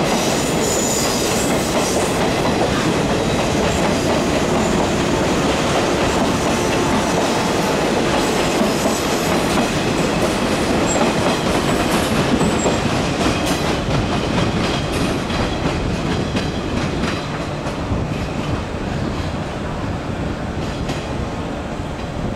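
A JR 113 series electric train running past close by, its wheels clicking over rail joints and points; the sound eases a little near the end as the last car draws away.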